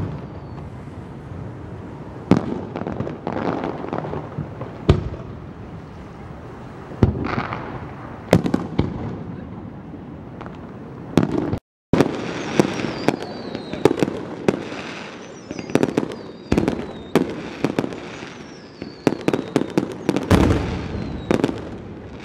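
Aerial fireworks shells bursting one after another: sharp echoing booms with crackling clusters, and faint falling whistles in the second half. The sound cuts out for a moment about halfway through.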